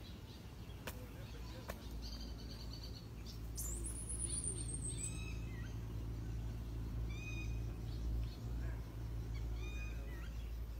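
Birds calling outdoors: repeated short chirps and a high, falling whistle a few seconds in, over a steady low rumble. Two sharp clicks sound in the first two seconds.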